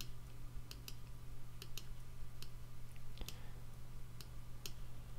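Computer mouse clicking irregularly, about eight clicks, some in quick pairs, over a steady low hum.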